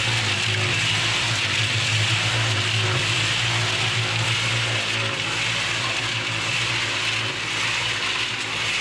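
Concrete mixer running steadily: a constant low motor hum under an even wash of noise from the turning drum. The mixer is worn and loose, its drum wobbling with a lot of play.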